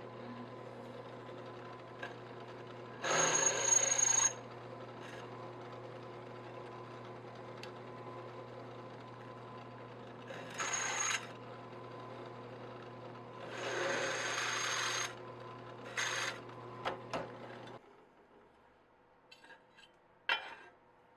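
Drill press motor running steadily while the bit cuts into aluminium channel in four spells of loud drilling with a high squeal. The motor switches off near the end, and a few light clicks follow.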